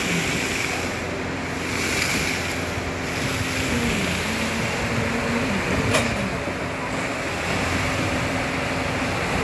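Diesel engine of the concrete pumping equipment running steadily under load, its hum dipping briefly in pitch now and then, over a constant rushing noise. One sharp knock sounds about six seconds in.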